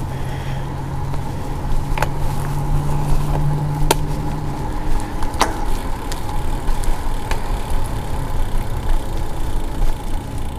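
Bicycle ridden along a paved trail: steady wind and tyre rumble on the handlebar-mounted mic, with scattered sharp clicks and knocks from bumps. A low steady hum runs through the first four seconds or so and then stops.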